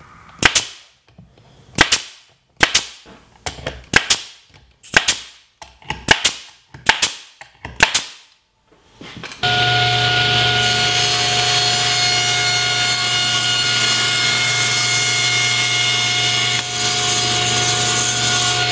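A pneumatic nail gun fires a string of about ten sharp shots into plywood. About nine seconds in, a table saw starts running with a loud steady hum and whine that holds to the end.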